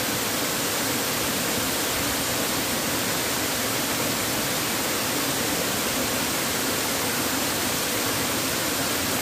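Waterfall crashing into its pool: a steady, loud, unbroken rush of water that fills every pitch evenly.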